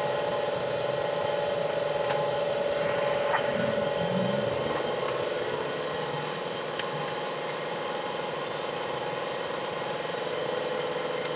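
Steady mechanical hum at one unchanging pitch, like an engine or machine running, with a few faint clicks.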